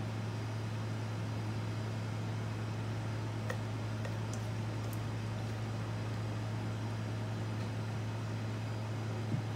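Steady low hum with an even hiss behind it, and a few faint clicks, the last and loudest near the end.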